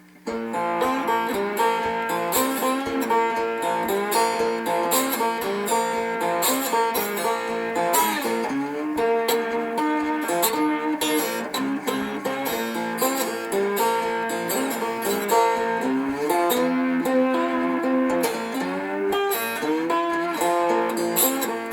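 Homemade three-string duct-cap banjo, picked up by a piezo and played through a small amplifier, plucked in a blues instrumental intro with a steady beat. It starts just after a brief pause.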